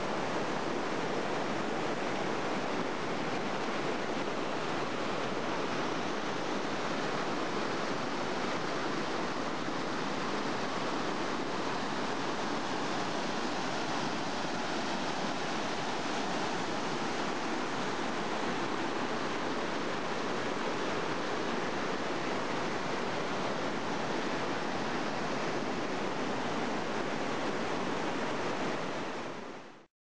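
Steady rushing of whitewater in a mountain river cascade, an unbroken wash of water noise that fades out near the end.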